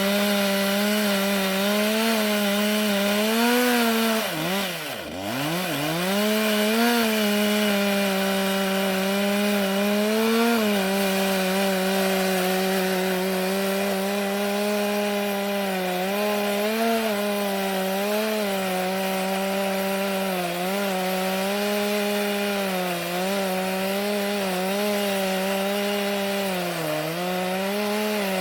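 Two-stroke chainsaw ripping an oak log lengthwise into boards on a homemade Logosol-type milling guide, its engine running steadily at high revs under load. About four seconds in the engine note drops sharply and then climbs back, and it dips briefly a few more times later in the cut.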